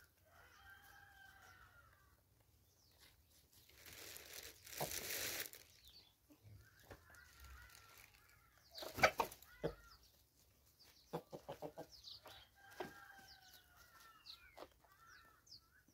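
Free-range chickens calling, with three drawn-out calls typical of a rooster crowing, spaced about six seconds apart. Short clucks and ticks run between the calls. A noisy rush comes about four seconds in, and a few sharp knocks, the loudest sound, come about nine seconds in.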